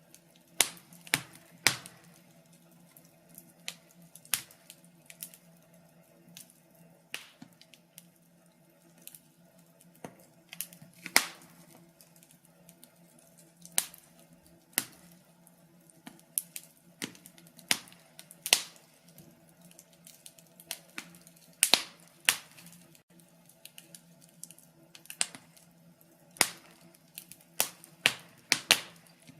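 Wood fire crackling in a fireplace: sharp, irregular pops and snaps, some much louder than others, over a faint steady low hum.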